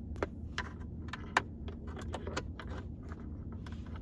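Small plastic clicks and rattles of a USB adapter and its cable being handled and plugged into a port, with one sharper click about a second and a half in, over a steady low hum.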